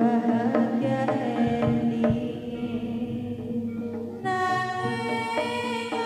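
Live jaranan (kuda lumping) music: regular drum strokes over a steady held tone. About four seconds in, a bright, louder melody line comes in.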